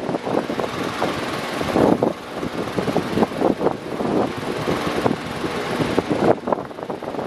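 Electric fan running continuously, a loud rushing of air that wavers unevenly in strength.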